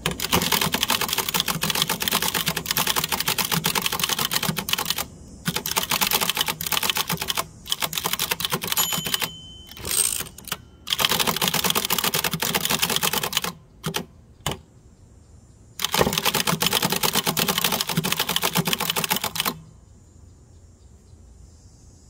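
A 1949 Adler Favorit 2 thrust-action manual typewriter being typed on quickly, in bursts of rapid keystroke clacks with short pauses between them. The typing stops a couple of seconds before the end.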